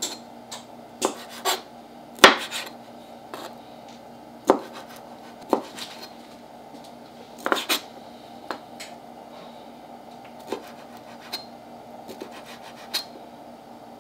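Kitchen knife cutting cooked shrimp on a plastic cutting board: irregular sharp taps of the blade striking the board, about a dozen, the loudest a couple of seconds in.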